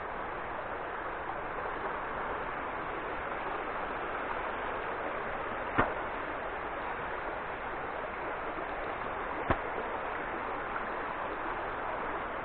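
Shallow forest stream flowing over a flat rock bed: a steady wash of running water, broken by two brief sharp clicks a few seconds apart around the middle.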